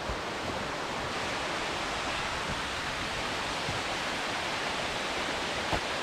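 Steady rush of a nearby waterfall, an even hiss of falling water, with one faint knock shortly before the end.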